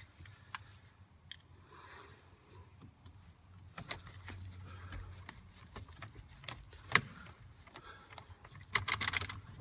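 Scattered small clicks, taps and light rattles of hand tools, screws and plastic parts being worked at a steering column while a multi-function switch is fitted. There is a sharp click about seven seconds in and a quick run of clicks near the end.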